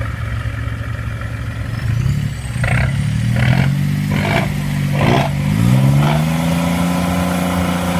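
Smart car engine through an aftermarket exhaust, idling and then revved: its pitch steps up a few times from about two seconds in and holds at higher revs. Short sharp bursts of noise come about once a second in the middle.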